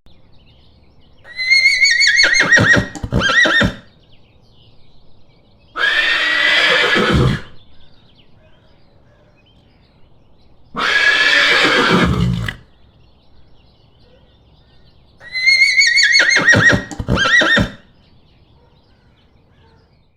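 Horse neighing four times, a few seconds apart. The first and last are high whinnies with a shaking, trilling pitch that falls away at the end. The two in between are rougher and breathier.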